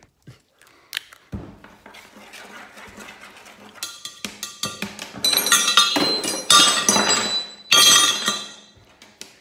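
Hard objects being handled and rummaged through, clinking and clattering with short ringing notes. It starts as a few scattered small clicks and grows into repeated loud clatters in the second half.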